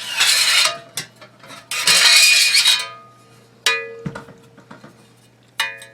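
Aluminium upper rail of an M+M M10X-Z rifle being slid off and handled: two long metallic scrapes, then two sharp clinks that ring on. The ringing marks the part as aluminium.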